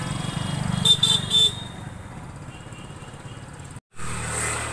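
Mahindra Yuvo 575 DI tractor's four-cylinder diesel engine idling with a steady low pulse, overlaid about a second in by three short, loud, high-pitched toots. The engine sound drops lower after that, and there is a brief total dropout near the end.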